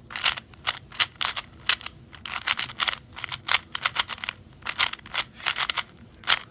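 MoYu RS3M magnetic 3x3 speedcube being turned fast: quick runs of plastic clicks and clacks as the layers snap round, several a second, with brief pauses between bursts of turns.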